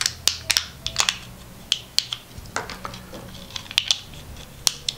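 Heat-shrink tubing crinkling and clicking as fingers work it over a small GPS module: a dozen or so irregular sharp clicks and short rustles.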